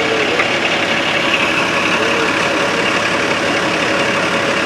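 Steady engine idling, even and unbroken.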